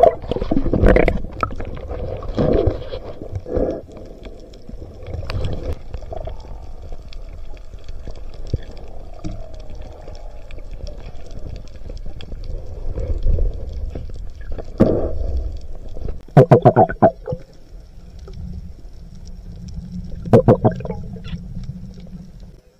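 Muffled underwater sound picked up by a camera in its housing: a steady low rumble and gurgle of moving water with scattered knocks from handling. Twice in the latter part come short, louder pitched muffled sounds.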